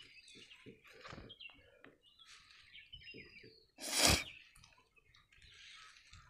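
Birds chirping in short, thin whistles, with a brief loud rustle of paper about four seconds in.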